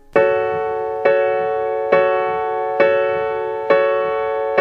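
Background music: a piano chord struck five times at an even pace, a little under a second apart, each left ringing until the next.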